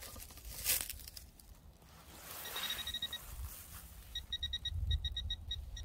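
Handheld pinpointer probe beeping in short, rapid pulses as it is pushed into pine needles and loose soil, locating a metal target: a quick run of beeps a couple of seconds in, then more beeps in bursts near the end. A brushing scrape of pine needles near the start.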